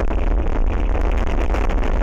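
Strong wind buffeting the outdoor camera's microphone: a loud, steady low rumble with a rushing hiss above it.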